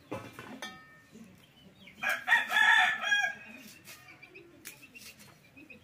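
A rooster crowing once, starting about two seconds in and lasting just over a second.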